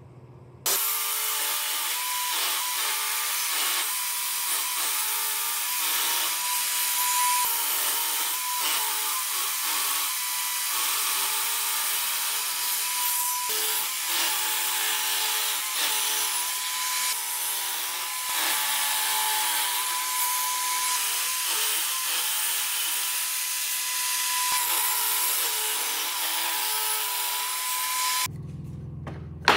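Table saw ripping boards of chamjuk (Korean mahogany), the blade cutting steadily through the hardwood with a faint steady whine. It starts abruptly about a second in and cuts off shortly before the end.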